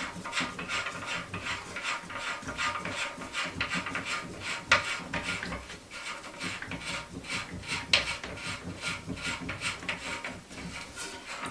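A plastic nut being unscrewed from a toilet's water supply connection: rapid, repeated scraping strokes of plastic threads turning, with a sharper click about halfway through and another about two-thirds of the way through.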